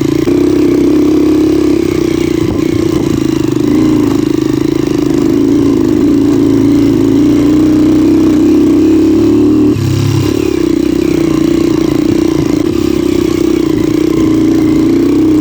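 Dirt bike engine running steadily under way, with a short break in its note about ten seconds in.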